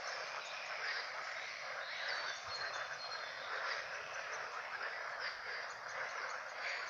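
A dense chorus of many frogs calling at once, a steady mass of overlapping croaks.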